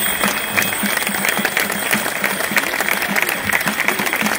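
Crowd applauding: dense, continuous clapping from many hands.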